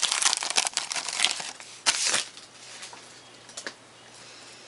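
Trading-card pack wrapper being crinkled and torn open, with dense crackling rustle for about two seconds. It then drops to a few light ticks.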